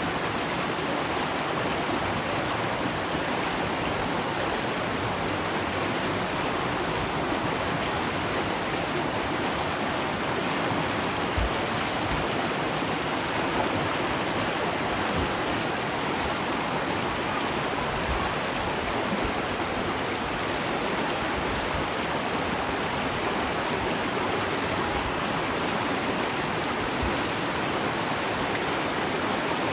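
River water flowing and rushing steadily, an even broad wash of sound with no let-up.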